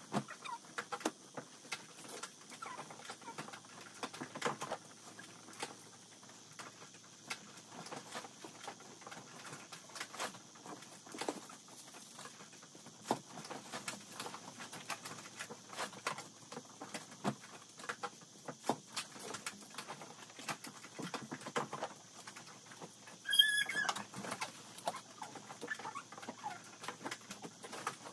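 Clothes being handled and folded into cardboard boxes: irregular rustling of fabric with soft knocks and scrapes of the cardboard. Late on comes one short high-pitched squeak, the loudest sound.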